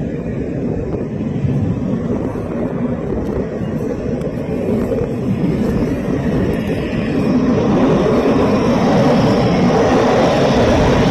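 Dassault Rafale fighter jet approaching from a distance, a steady engine rush that grows louder and brighter over the last few seconds as it nears.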